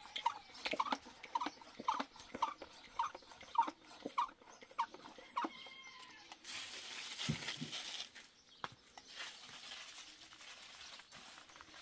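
An animal calling in short, pitched calls repeated about twice a second, stopping after about five seconds; then a steady hissing noise takes over.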